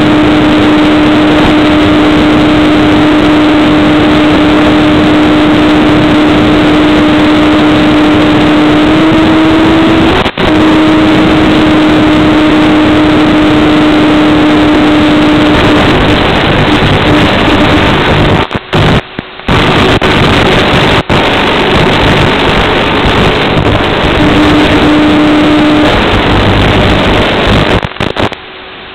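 Loud hiss of an FPV model aircraft's analog video-link audio, carrying a steady whine from its electric motor and propeller. The whine steps up slightly partway through and then weakens. The signal cuts out briefly several times and breaks up near the end as the radio link fails.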